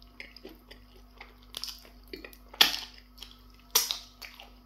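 Close-up eating sounds of a man eating semo fufu with okra soup by hand: irregular wet mouth smacks and chewing, the loudest about two and a half and four seconds in.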